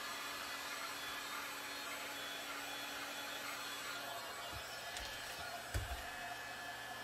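DeWalt heat gun blowing steadily, heating the edges of a Kydex holster to soften them; its sound shifts about four seconds in as it is moved away. A few short low knocks come near the end.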